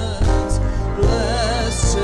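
Church worship music: a steady bass under a melody line that wavers with vibrato, with occasional cymbal shimmer.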